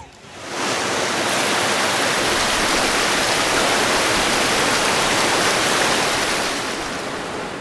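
Whitewater rapids rushing: a steady, dense roar of water that fades in quickly and slowly tapers off near the end.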